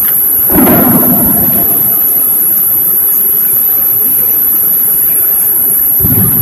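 Steady high-pitched electronic whine over a constant hiss. A brief louder rumble comes about half a second in, and another near the end.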